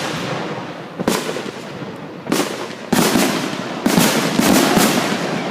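Fireworks going off: single sharp bangs about one and two seconds in, then a rapid string of bangs and crackling from about three to five seconds in.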